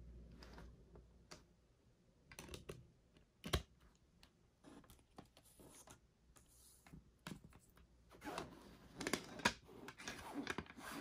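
Hands handling a plastic CD jewel case: scattered clicks and taps of the plastic, with one sharp click about three and a half seconds in and a busy run of clicks and rattles near the end as the case is shut.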